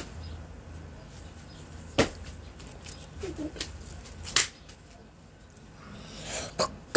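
Two sharp taps about two seconds apart from a person moving about, then a soft rushing sound building near the end.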